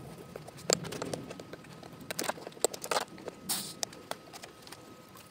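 Shop rag rubbing and wiping a U-joint yoke on a workbench, taking off paint softened by carb cleaner. Scattered sharp clicks and knocks come through as the metal part is handled.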